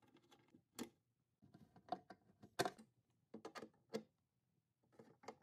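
Metal cam-lock fittings clicking and scraping against the particleboard panels of a flat-pack TV stand as they are set into their holes and turned with a hand screwdriver: an irregular run of light clicks and knocks.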